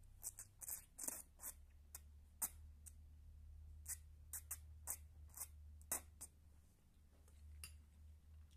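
Person slurping noodles off a fork and chewing: a run of short wet smacks and clicks that dies away about six seconds in, over a faint steady low hum.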